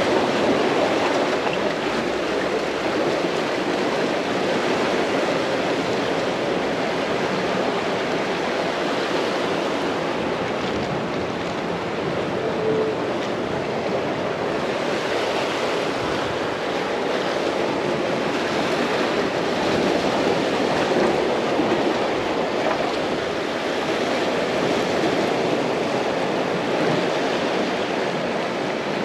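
Ocean surf washing on the beach: a steady rush of noise that swells and eases gently.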